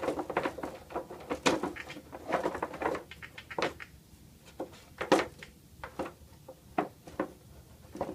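Irregular clicks, taps and knocks of hands working on the open synthesizer's case, setting parts and screws back in place, some knocks ringing briefly.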